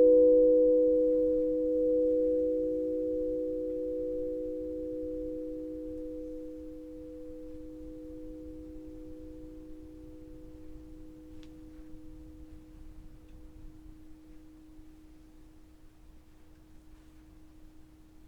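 Singing bowl tones ringing together and slowly dying away, the higher tones fading first and the lowest one lingering longest.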